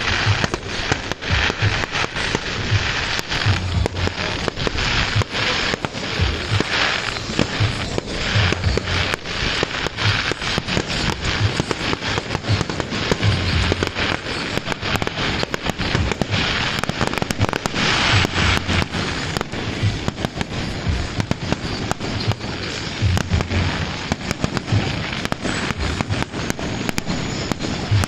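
Fireworks display: continuous rapid popping and crackling, with deep booms every second or two.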